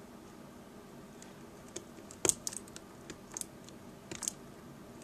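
Scattered small plastic clicks and taps from a prying tool working the clip off a laptop screen's display-cable connector. The sharpest click comes about two seconds in, with a few more clustered near the end.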